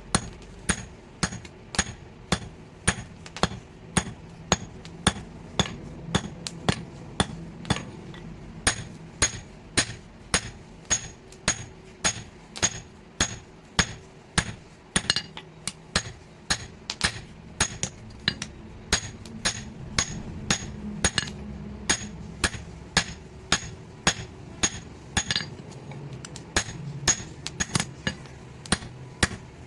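Hand hammer forging metal, struck in a steady rhythm of about two blows a second, each blow with a short bright ring.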